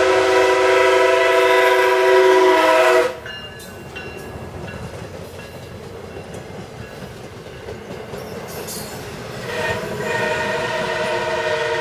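MARC MP36PH-3C diesel locomotive's horn sounding a chord that cuts off sharply about three seconds in. The bilevel passenger cars then rumble and clatter past on the rails, and the horn sounds again near the end.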